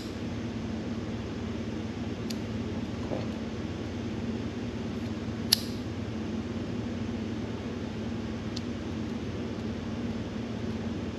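Steady hum of a running fan, with one sharp click about five and a half seconds in and a couple of faint ticks.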